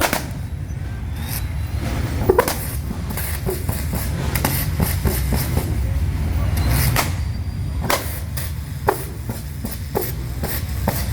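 Quad-turbo VL Commodore's engine running with a deep, uneven rumble, its exhaust letting off sharp cracks and pops at irregular intervals, about a dozen through the stretch, as it spits flames.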